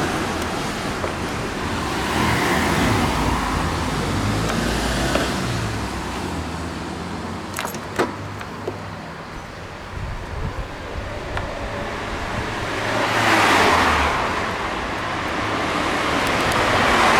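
Road vehicles passing, with two swells of engine and tyre noise in the second half and a couple of sharp clicks about eight seconds in.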